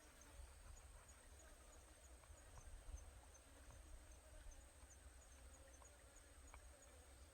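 Near silence: faint outdoor background with a steady high-pitched hiss, a soft chirp repeating a few times a second, and scattered faint ticks.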